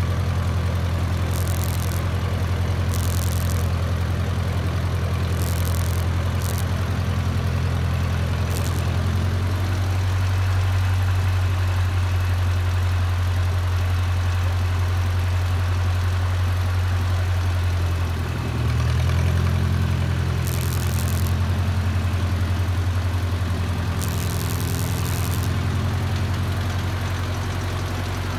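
Antique tractor engine running at low speed with a steady chug. Its note shifts about a third of the way in, then dips briefly and picks up again about two-thirds of the way through.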